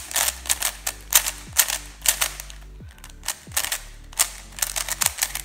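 Stickered CubeLelo Drift 3x3 speed cube being turned rapidly by hand, its plastic layers clacking in fast runs of sharp clicks with brief pauses between. It is new out of the box, turning very fast and a little loose.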